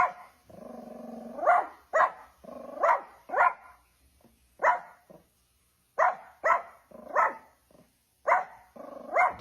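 Dog barking repeatedly: about a dozen short barks, often in quick pairs, with brief pauses between groups.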